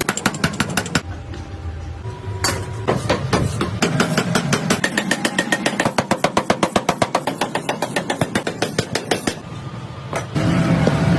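Metalworking lathe machining a tractor axle spindle, with rapid, regular clicking several times a second. The clicking drops away briefly twice, and the machine sound grows louder near the end.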